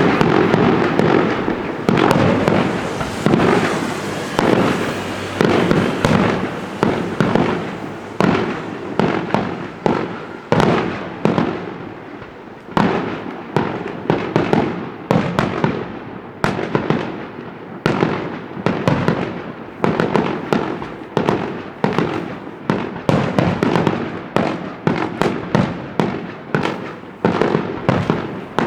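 Fireworks going off in quick succession. A dense barrage at first, then separate bangs about one to two a second.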